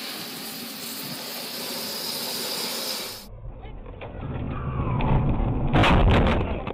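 A fire hose hissing as it sprays water onto a burning truck for about three seconds, then truck and road noise from a dashcam, rising to a loud crash with sharp impacts about six seconds in.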